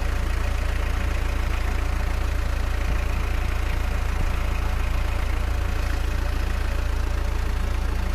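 Peugeot Partner 1.9 diesel idling with its electric radiator cooling fan running on first stage: a steady low engine hum under an even rush of air from the fan. The fan has cut in at about 97 °C, a sign that the fan relay and cooling-fan circuit are working.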